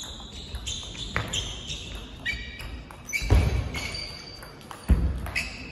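Table tennis rally: the celluloid ball clicking off rackets and table, with shoes squeaking on the sports hall floor and two heavy thuds about three and five seconds in.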